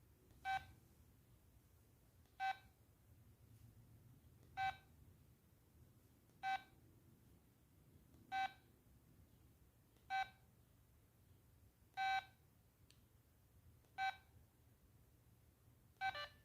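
LG MD5330 mobile phone's keypad tone beeping at each key press: nine short beeps of one pitch, about every two seconds, the last a quick double beep.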